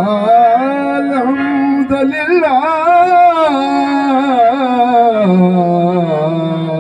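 Man singing a long, wavering melismatic line of an Urdu hamd (a devotional song in praise of God), accompanied by a harmonium.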